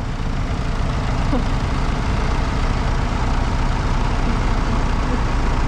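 Farm tractor engine running steadily, a low even rumble with no change in speed.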